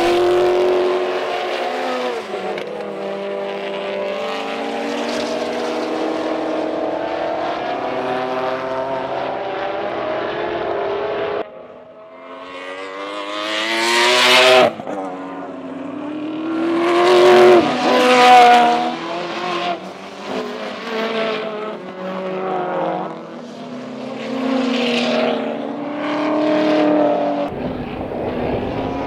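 Sports sedan race cars at full throttle: one engine note holds steady for the first eleven seconds or so. After a sudden cut, several cars pass one after another, each rising to a peak and falling away in pitch.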